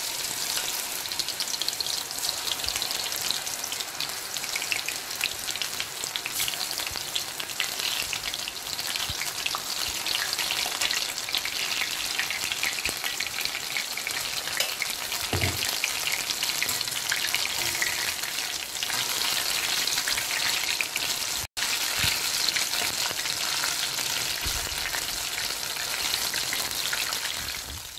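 Batter-coated mushroom pieces deep-frying in hot oil in a kadai: a steady, dense sizzle and crackle that drops out for an instant about three quarters of the way through.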